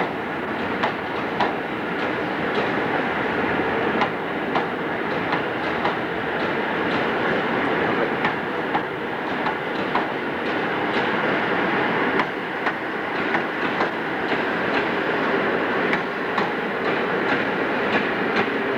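Passenger train running over rail joints: a steady rumble with clickety-clack wheel clicks that come faster toward the end as the train gathers speed.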